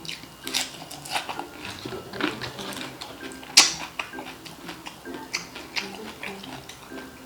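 Close-up crunching and chewing of crispy deep-fried chicharon bulaklak (pork intestines): irregular sharp crackles, the loudest about midway, over light background music.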